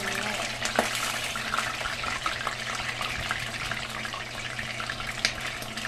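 Food frying in hot oil: a steady sizzle with many small crackling pops, the oil spattering from wet food.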